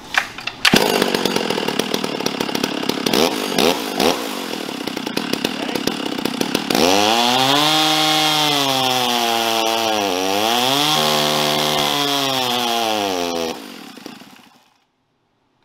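A mildly ported Stihl MS460 Magnum two-stroke chainsaw, with a bark-box exhaust and gutted muffler, is loud as it fires up and runs unevenly with irregular popping. About seven seconds in it goes to full throttle on the chainsaw dyno, its pitch sagging under load and recovering around ten seconds. It shuts off and winds down near the end. This is a dyno run made before any carburettor tuning.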